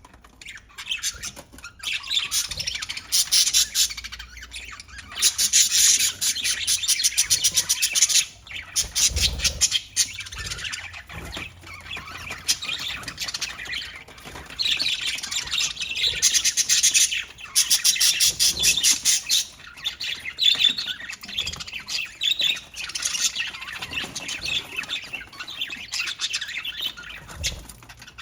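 Budgerigars chattering and squawking, with several louder stretches of fast, dense chatter.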